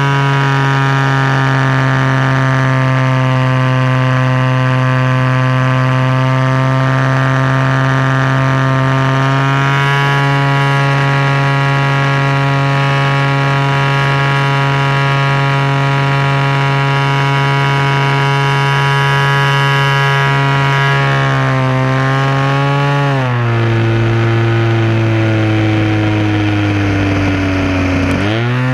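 DLE 20 single-cylinder two-stroke gasoline engine of an RC aerobatic plane, turning a 16x8 propeller in flight, heard close up from a camera bolted under the fuselage. It runs at a steady high pitch that steps up slightly about a third of the way in. It is throttled back in two drops past the two-thirds mark, holds lower for several seconds, then climbs sharply again near the end.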